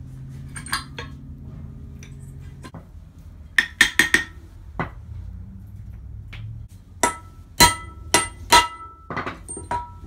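Sharp metal-on-metal knocks with a bright ringing after each: a Jeep Cherokee XJ front axle U-joint and its steel yoke being knocked against a cast-iron brake drum to pound the U-joint back into the yoke. A cluster of four knocks comes about four seconds in, then a louder string of knocks in the last three seconds.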